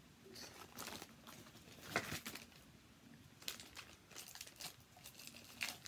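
Gift wrapping paper crinkling and rustling in irregular handfuls as a present is unwrapped by hand, with a louder rustle about two seconds in.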